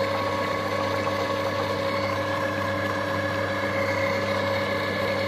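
Compact Cook Pro cooking robot's motor running at a steady speed on its self-cleaning program: a constant hum with a few fixed whining tones over it.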